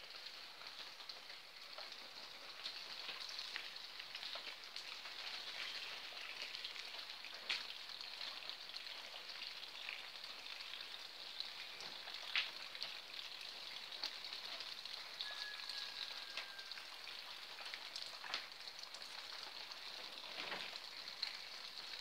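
Steady rain falling on wet ground and puddles: an even, fine hiss with a few sharper taps of close drops.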